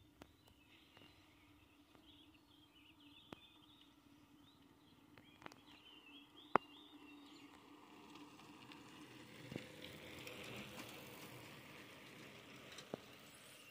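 Quiet open-country ambience: small birds chirping over a faint steady hum, with a few sharp clicks, the loudest about six and a half seconds in. From about eight seconds a soft swell of rushing noise rises and fades as two bicycles pass close by.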